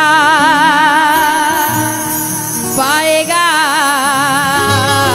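Hindi devotional bhajan to Khatu Shyam: a solo voice holds one long note with wide vibrato over steady instrumental accompaniment, then moves into a new sung phrase about three seconds in.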